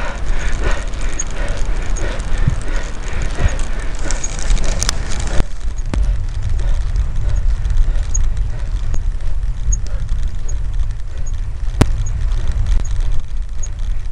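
Wind buffeting the microphone of a camera carried on a moving road bicycle, a steady low rumble, with a few sharp knocks and a faint high tick repeating about once a second.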